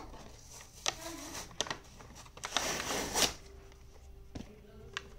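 Toy packaging handled and torn open by hand: a few sharp crackles and snaps, with the longest stretch of rustling and tearing about two and a half seconds in.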